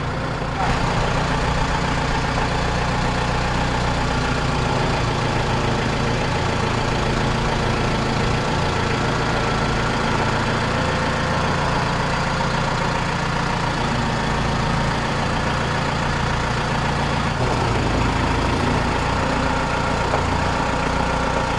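Compact tractor engine running steadily while the tractor carries a small metal building on its forks and three-point hitch, with a slight change in the sound about 17 seconds in.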